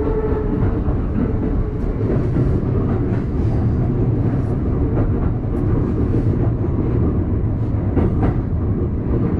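Electric commuter train running along the track, heard from inside the driver's cab: a steady low rumble with a few sharp clicks of the wheels passing over rail joints.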